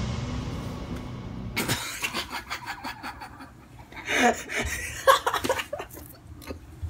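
Low rumbling music fades out over the first second and a half. Then a person laughs in short giggling bursts, about four to five seconds in.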